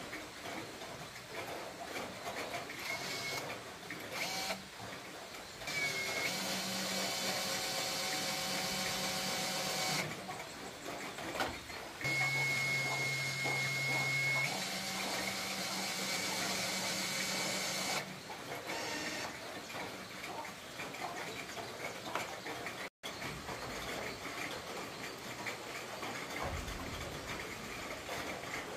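A small electric motor runs twice for several seconds at a time, with a steady hum and a high whine. In the second run its pitch starts lower and steps up about two seconds in.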